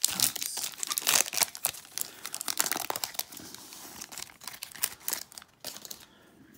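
Foil wrapper of a Topps Holiday baseball card pack being torn open and crinkled by hand: a dense run of sharp crackles that stops about five and a half seconds in.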